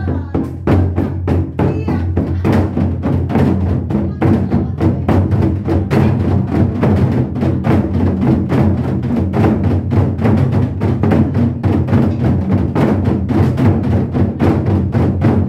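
Modeumbuk, a Korean set of barrel drums, played with sticks in a fast, driving nanta rhythm of several strokes a second over backing music.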